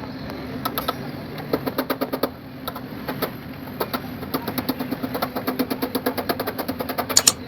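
Quick runs of light tapping, about five to six knocks a second, with a few louder strikes near the end, over a steady hum.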